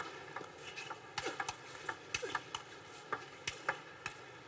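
Scattered light clicks of table tennis balls striking tables and bats, irregular, with a couple of short squeaks among them.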